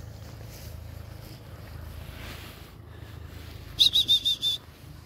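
Five short, high whistle notes in quick succession about four seconds in, loud and close: a person whistling to call the dogs.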